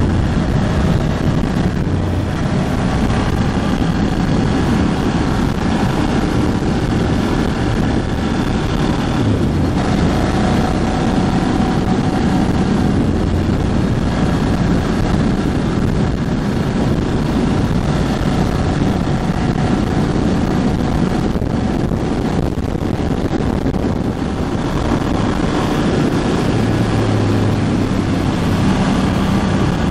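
Ducati Hypermotard 1100S's air-cooled L-twin engine running under way as the motorcycle is ridden, its pitch shifting now and then with throttle and gear changes, with wind noise on the microphone. The bike is in its break-in period.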